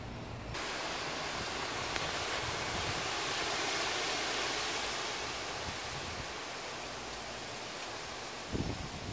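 Steady rushing noise of a storm in the trees. It starts suddenly about half a second in, swells through the middle and eases slowly. A brief low bump comes near the end.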